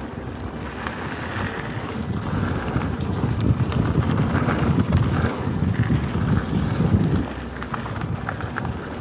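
Mountain bike riding down a dirt trail: tyres rolling over the ground with the bike rattling and knocking over bumps, and wind buffeting the microphone.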